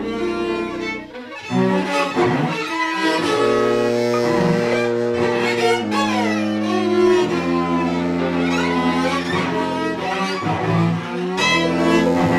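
Cello and violin bowing freely improvised, overlapping held notes with sliding pitches. The sound dips briefly about a second in, then swells back with the low notes changing about halfway through.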